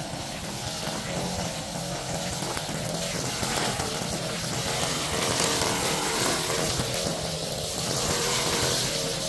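Small gasoline engine of lawn equipment running steadily at working speed, with a high hiss over it.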